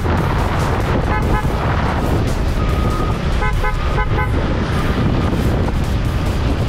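Wind rushing over a camera microphone moving at racing speed in a road-bike pack, a steady low rumble, with short high tones like toots sounding a few times, clustered about a second in and again around four seconds in.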